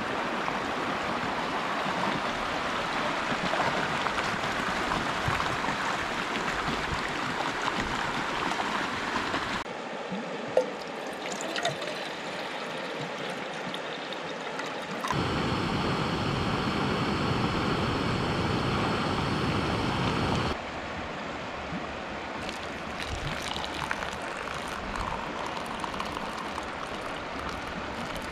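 Shallow river water running over a rocky riffle. Later, water is poured from a cup into a cooking pot and then from the pot into a mug, with the river running behind and a louder steady rush for a few seconds in the middle.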